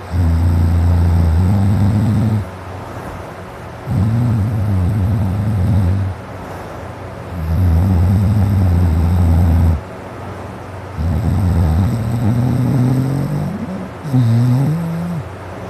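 A man snoring deeply: low, rough snores about two seconds long, coming roughly every three to four seconds, five in all, with quieter breathing between them.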